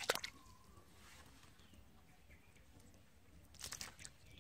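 Short bursts of wet slapping and crackling in mud and grass as caught fish thrash on the muddy ground: once at the start and again near the end.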